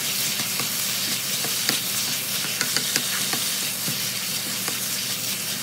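Sliced chicken thigh, onion and garlic sizzling in olive oil in a pan while a wooden spatula stirs them: a steady sizzle with many small pops and clicks.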